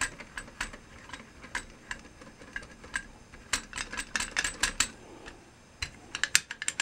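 Vintage Meazzi hi-hat stand's pedal and spring mechanism clicking and rattling as it is worked, in scattered metallic ticks that bunch into quick clusters about halfway through and again near the end. It is the rattle that the restorer has been trying to damp with felt washers and lighter spring tension.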